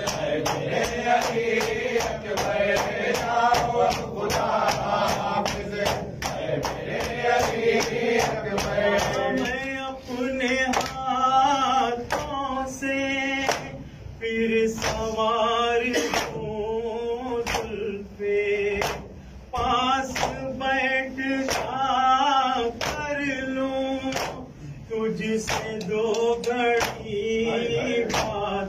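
Men's voices singing an Urdu noha, a Shia Muharram lament, with a group joining in. Under the singing runs a steady rhythm of sharp hand slaps on bare chests (matam), quicker in roughly the first third and slower after.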